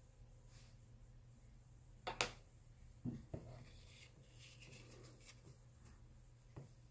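Quiet room tone broken by small handling noises: a sharp click about two seconds in, two softer knocks about a second later, faint rustling, and a small click near the end.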